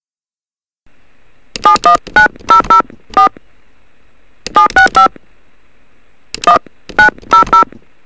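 Touch-tone phone keypad dialing a number: short two-tone beeps in three quick groups of about six, three and four. Under them is a faint steady phone-line hiss that begins about a second in.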